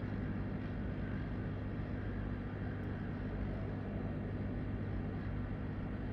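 Steady electric fan noise with a constant low hum underneath, unchanging throughout.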